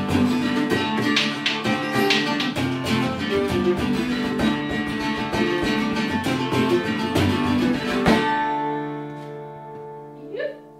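An Irish folk tune on strummed acoustic guitar and plucked strings with a bodhrán beating along, ending on a final chord about eight seconds in that rings on and fades away.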